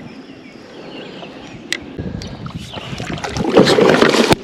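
Hooked flathead catfish thrashing and splashing at the side of a kayak, with a couple of sharp knocks; it starts quiet and grows to the loudest splashing near the end.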